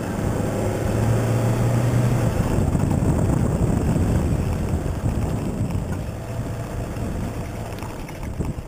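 Toyota Hilux 4x4 driving off-road: its engine runs under a rough, choppy rumble of the truck working over the track. A steady engine hum sinks into the rumble about two seconds in, and the noise eases a little near the end.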